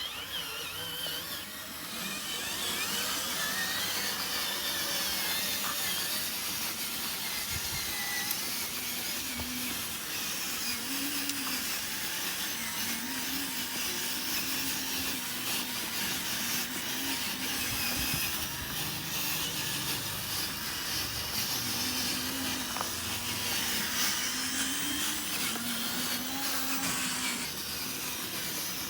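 Small electric motors and gearboxes of radio-controlled construction models whining steadily, the pitch wavering up and down as they are worked.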